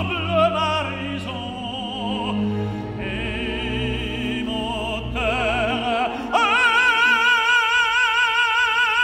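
Operatic tenor singing in French with a symphony orchestra: phrases sung with wide vibrato over the strings, then, about six seconds in, a loud held note with vibrato.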